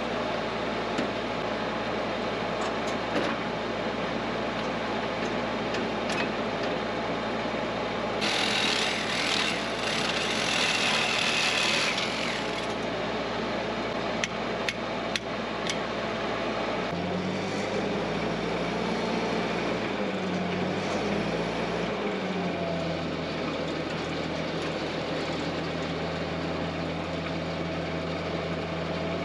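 Reciprocating saw (Sawzall) at work on steel. About eight seconds in comes a harsh rasping hiss for some four seconds, and from about seventeen seconds a motor hum that wavers in pitch and then holds steady. The cutting is freeing a jammed engine: the battery box and the generator brace are cut so the motor can drop clear.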